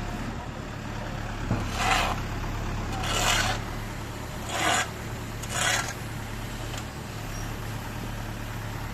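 Excavator at work: a steady diesel engine drone with four short rasping scrapes about a second apart in the first half.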